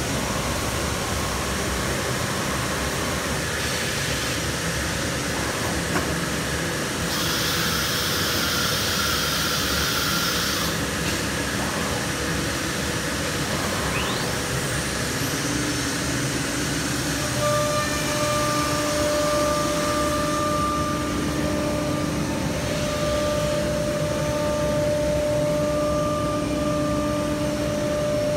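Masterwood 15/38 K three-axis CNC wood machining centre running with its dust extraction on: a steady rushing machine noise. A hiss comes in for a few seconds about seven seconds in, and a steady whine joins about halfway through and holds.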